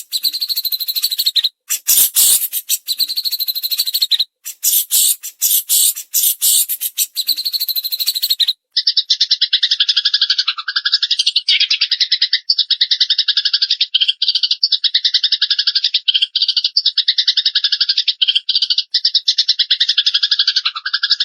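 Recorded cagebird song of a fighting burung gereja (Eurasian tree sparrow) and a cililin. First comes a rapid, scratchy chattering with short breaks. About eight seconds in it switches abruptly to a continuous, very fast trill.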